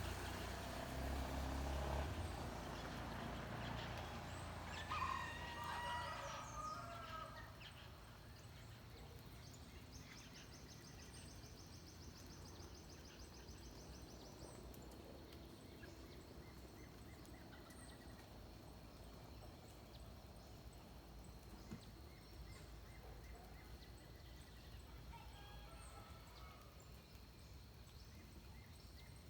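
Faint dawn forest ambience with scattered bird calls, chirps around five seconds in and again near the end. A low rumble fades out in the first several seconds, and a fast, high, pulsing trill runs for a few seconds in the middle.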